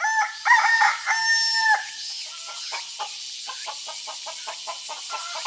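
A rooster crowing once, the last note held longest, followed by a run of rapid clucking from chickens.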